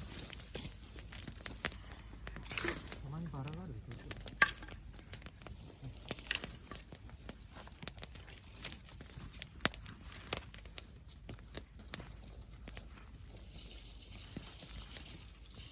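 Dry twigs and brush crackling and snapping in an irregular scatter of sharp cracks, with a short low voice sound about three seconds in.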